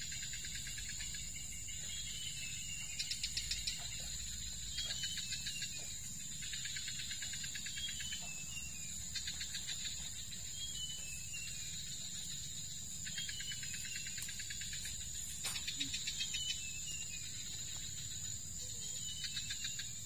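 Insects in undergrowth: a steady high-pitched drone, with a rapid ticking trill that comes in short bursts every second or two. Faint short chirps of small birds sound in between.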